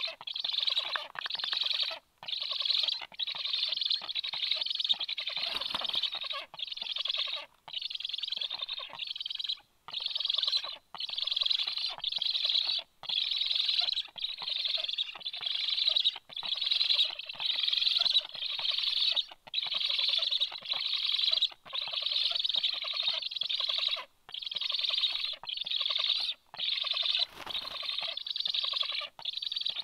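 Black stork nestlings giving begging calls: a rapid rasping chatter kept up almost without a break, cut by brief pauses every second or two.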